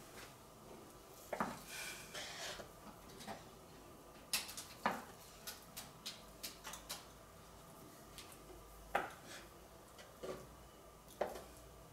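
Kitchen knife cutting soft mozzarella into pieces on a bamboo cutting board: sharp, irregular taps and knocks of the blade striking the wood.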